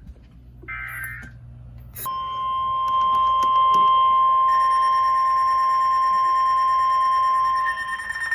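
The last short warbling data burst of an Emergency Alert System header, then from about two seconds in NOAA Weather Radio's steady 1050 Hz warning alarm tone, signalling that a new warning is about to be read. A second, higher tone joins about halfway through, and a rapid beeping starts right at the end.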